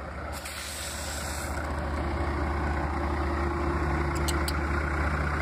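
Semi truck's diesel engine idling steadily, its low hum growing louder, with a few short high-pitched chirps about four seconds in.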